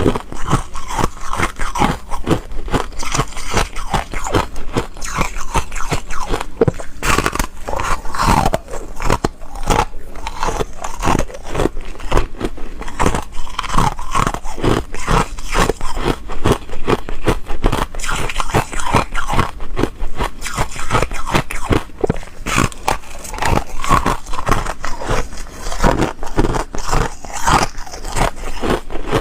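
Close-miked biting and chewing of foam ice: a dense, continuous run of crisp crunches and squeaky scrapes.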